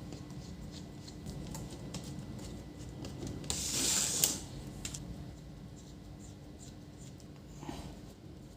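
Small handling sounds of a laptop display housing being taken apart by hand: faint clicks and scratches of a screwdriver and plastic parts, with one louder scrape lasting under a second about three and a half seconds in.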